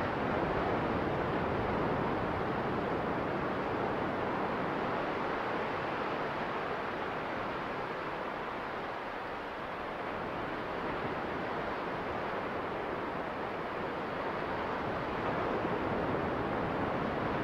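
Steady rushing noise of small waves washing onto a beach, mixed with wind.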